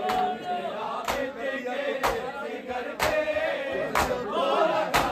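A group of men reciting a noha together in a chanting voice, with a sharp, unison slap of matam (hands beating on chests) keeping time about once a second.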